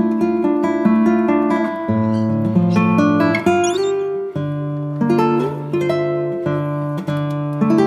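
Background music: an acoustic guitar playing plucked notes and chords, changing every second or so.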